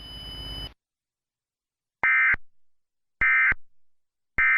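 Emergency Alert System end-of-message tones: three short, identical bursts of buzzing SAME digital data, about a second apart, each followed by a fading echo. A brief hiss comes first.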